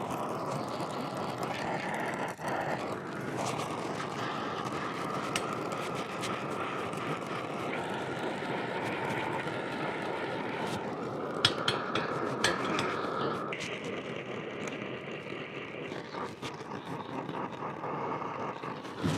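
Steady rushing hiss with a faint steady whine running through it, and a few sharp clicks about eleven to thirteen seconds in.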